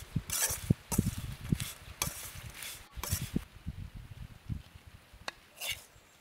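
Metal spoon stirring and scraping fried brinjal pickle (moju) around a metal wok, in a string of uneven scrapes and light clinks about once a second.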